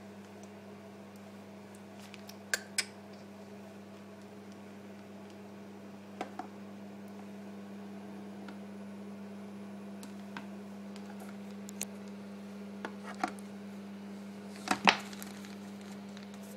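Plastic baby spoons knocking against a plastic high-chair tray: short, scattered clicks, about ten in all, the loudest pair near the end, over a steady low hum.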